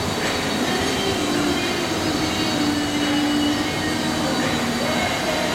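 Automatic form, fill and seal chopped-straw baler running: a steady, dense machine noise with a few faint whining tones, and a stronger hum rising out of it about two and a half seconds in for about a second.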